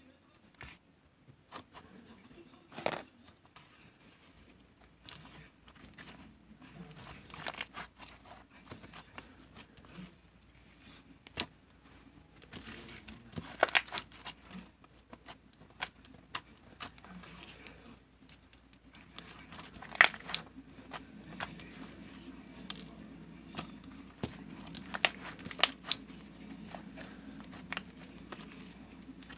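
Slime being squished and stretched by hand, giving irregular sharp clicks and crackling pops, with a few louder snaps.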